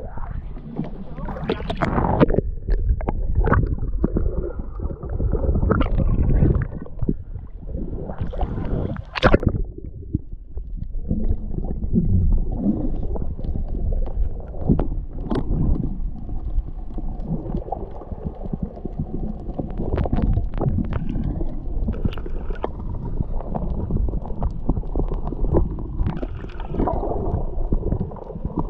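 Sea water sloshing and gurgling around a camera held at and under the surface, sounding muffled, with scattered knocks. There is a loud splash about two seconds in as a person jumps into the sea from a boat's stern.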